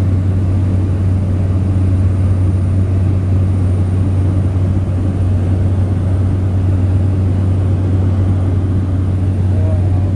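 Cabin drone of a high-wing light aircraft's engine and propeller in cruise: a loud, steady, deep hum with no change in pitch, heard from inside the cabin.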